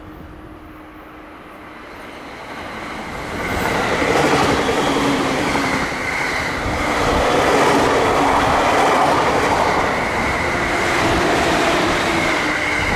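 Green-and-orange-striped suburban electric multiple-unit train passing close, building up from about three seconds in and staying loud as the cars run by, with a steady high-pitched whine over the rumble of the wheels.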